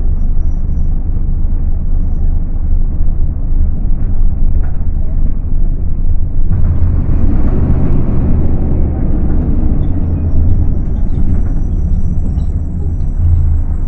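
Scania K250UB city bus's diesel engine running under way, heard aboard the bus. About six and a half seconds in, a louder, fuller rush of engine and road noise swells up and dies away over the next four seconds or so.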